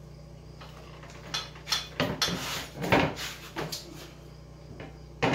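Irregular metal clanks, knocks and rattles of hands working on a Yamaha XT350 motorcycle on a stand, busiest in the middle, with a sharp knock at the end, over a steady low hum.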